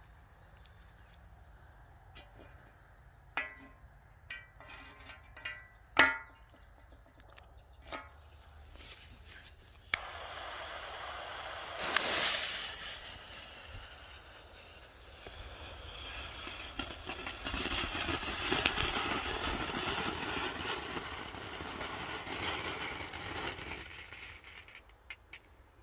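A few handling knocks, then a TNT 'Amazing Fountain' ground firework is lit about halfway through. It sprays sparks with a steady hiss and fine crackle that swells and then fades out near the end.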